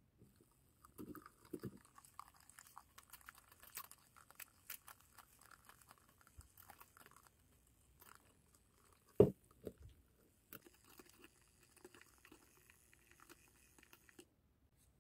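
Handheld battery milk frother whisking cream in a glass mug: faint, irregular crackling and clicking as the whisk churns the cream, with one sharp knock about nine seconds in, likely the whisk or mug striking the glass. The frothing stops shortly before the end.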